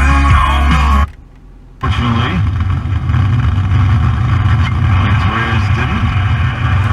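Car FM radio changing stations. Music from one station cuts out about a second in, there is silence for under a second while it retunes, then the next station, 47.5 miles away, comes in as a steady low hum with hiss over it.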